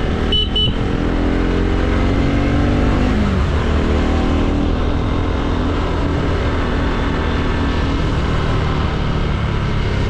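Motorcycle riding on a road, the engine running under a steady low rumble. A short horn beep sounds in the first second, and the engine note falls steadily over the next few seconds.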